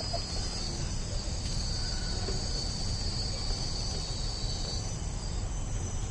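An insect, likely a cricket, trilling on one steady high-pitched note that stops near the end, over low outdoor rumble.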